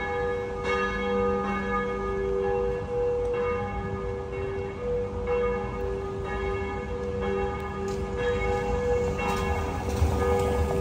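Church bells ringing: several bells of different pitch sounding together in a continuous peal, each struck again and again. It starts suddenly.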